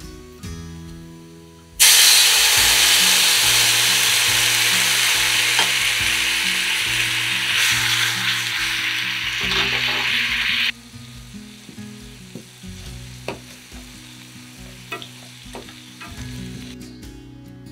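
Teriyaki seasoning hitting a hot iron frying pan of pan-fried potato chunks: a loud sizzle starts suddenly about two seconds in and cuts off abruptly some nine seconds later. After that the sauce sizzles much more quietly as it reduces to a glaze, with a few light taps of chopsticks.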